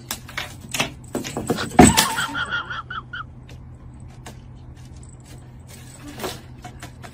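A cat pouncing and scrambling after a feather wand toy on a wooden floor: scattered knocks and scrapes, with a loud thump about two seconds in, followed by a brief run of high squeaks.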